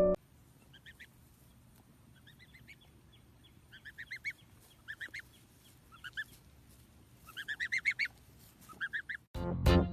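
Newborn kittens mewing: short, thin, high-pitched mews in small clusters, with a quick run of about half a dozen near the end.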